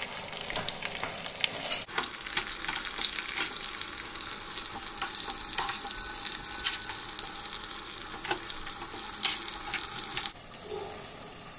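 A tempering of mustard seeds, dals, chillies and curry leaves sizzling and crackling in hot oil in a small pan, stirred with a metal spoon. The frying gets louder about two seconds in and drops off sharply near the end.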